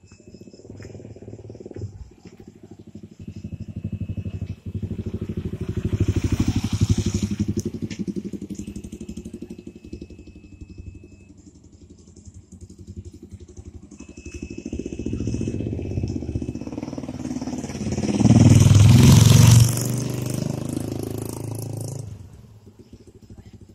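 Two motorcycles pass one after the other, each engine growing louder as it comes near and fading as it goes. The second, past the middle, is the louder and closer. Crickets trill faintly behind.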